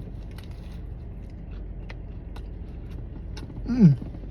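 Steady low hum of a car's engine idling, heard inside the car, with faint scattered clicks. Near the end a person gives one short 'mm' that falls in pitch.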